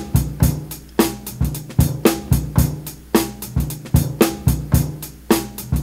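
Boom-bap drum break sampled from vinyl, with kick, snare and hi-hats looping at a steady tempo, played unprocessed straight off the record.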